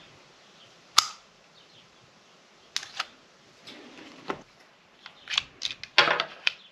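Zoraki M906 blank-firing pistol being handled: a string of sharp mechanical clicks and clacks, a loud one about a second in, a few more, then a quick cluster near the end.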